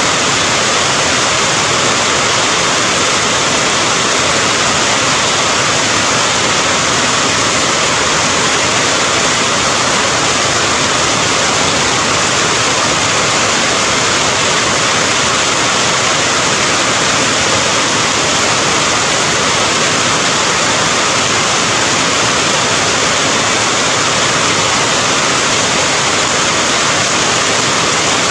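Steady heavy rain: a loud, even hiss with no breaks or separate drops standing out.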